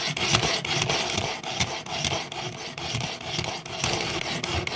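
Coarse sharpening stone rasping along the steel edge of a Milwaukee pocket knife blade in repeated back-and-forth grinding strokes.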